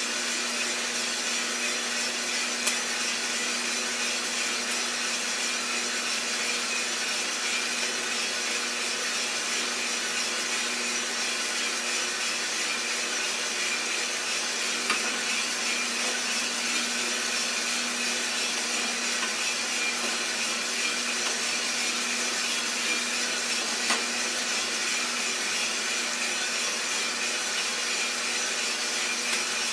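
Iroster600 roaster running steadily: a constant motor hum under a rushing fan noise, with a few single sharp clicks.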